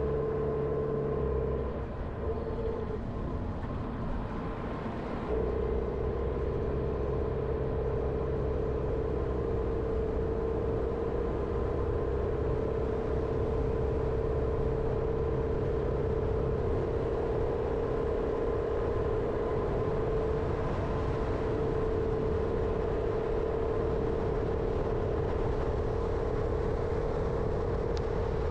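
A Jeep Renegade driving: steady engine and road noise with a constant whining tone. It eases off slightly about two seconds in and comes back up about five seconds in.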